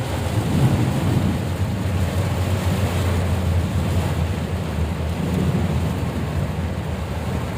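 Steady low rumble and hiss of a vehicle travelling in heavy rain, with rain, tyre spray and wind noise on the microphone.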